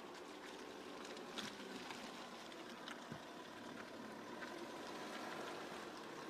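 Range Rover Sport creeping over a muddy track: a faint low engine hum under the tyres working through wet mud, with scattered crackles, growing louder as it nears.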